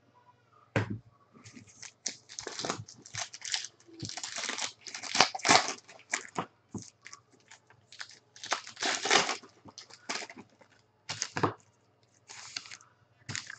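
Foil-wrapped trading card pack being torn open and its wrapper crinkled, in irregular bursts of crackling, loudest around five seconds in and again around nine seconds.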